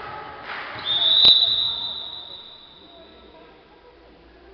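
Volleyball referee's whistle: one long blast of about two seconds, starting about a second in and fading away, the signal for the server to serve. A single sharp knock sounds near the start of the blast.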